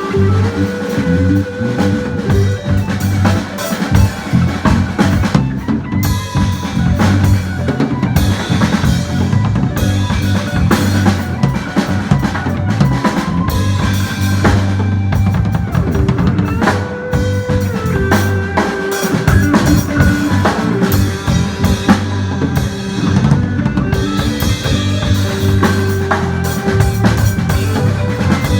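A drum kit played in a band groove, with kick drum, snare and rimshots hitting throughout over a steady bass line and sustained melodic notes.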